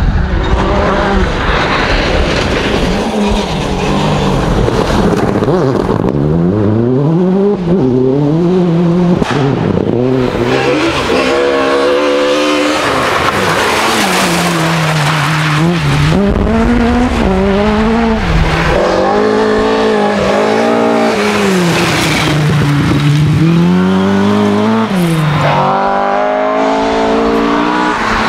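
Rally cars at full throttle one after another, among them a Suzuki Swift and a Fiat 131 Abarth. The engines rev up and drop back again and again through gear changes and corners, with a few short sharp cracks along the way.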